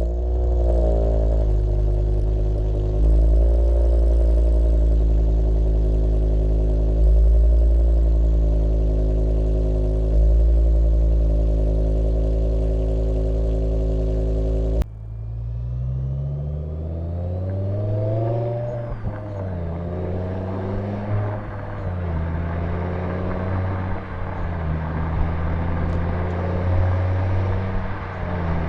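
BMW M6 E63's S85 5.0-litre V10 idling steadily for about the first fifteen seconds, with a few small steps up in level. The sound then changes abruptly and the engine runs at low revs under light throttle, its pitch rising and falling again and again.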